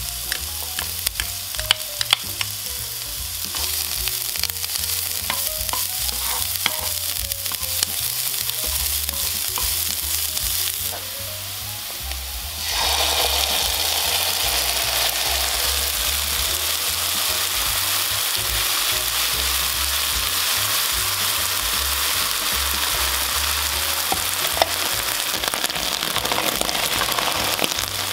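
Minced onion, garlic and ginger sizzling in hot oil in a pan, with sharp clicks of utensils against the pan in the first half. About 12 seconds in, the sizzle suddenly grows louder and denser as the chili-paste sauce goes into the hot pan, and it stays at that level while frying.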